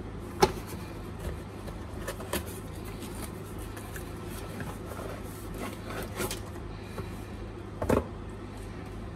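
Gloved hands handling a cardboard product box, opening its end flap and sliding out a glass aquarium heater: scattered rustles and light taps, a sharp tap about half a second in and a louder knock near the end.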